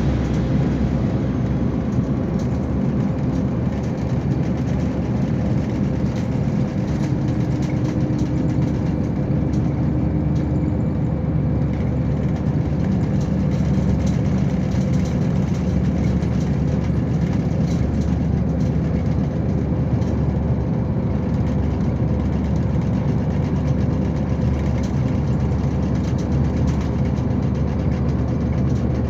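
Neoplan Starliner coach heard from inside its cabin while driving: the MAN D2066 turbo-diesel inline six runs with a steady drone under road noise. Faint clicking rattles from the bus body run through it.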